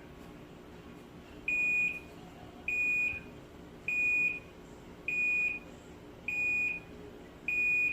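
Panasonic NA-F70S7 washing machine's end-of-cycle alert: six steady high beeps about a second apart, signalling that the tub-hygiene cleaning cycle has finished.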